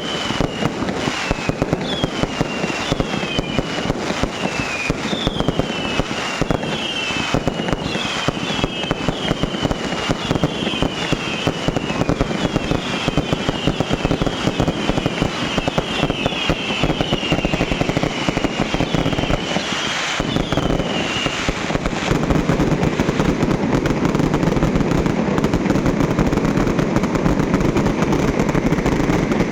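Fireworks going off in a dense, continuous crackle of small bangs, with many short falling whistles over the first two-thirds. The crackle grows louder and heavier from about 22 seconds in.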